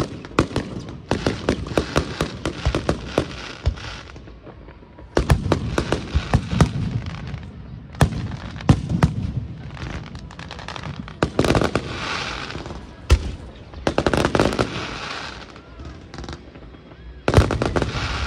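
Aerial fireworks going off in waves: rapid volleys of sharp bangs and crackling from bursting shells and crackle effects, with a louder barrage starting about five seconds in and another near the end.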